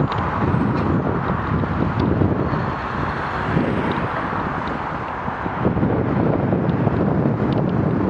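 Steady rush of wind buffeting the microphone of a camera on a moving bicycle, mixed with the noise of road traffic.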